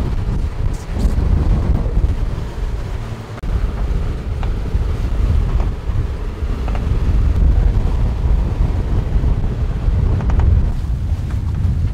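Strong headwind buffeting the microphone on a catamaran's deck, a heavy gusting rumble that eases briefly about three and a half seconds in.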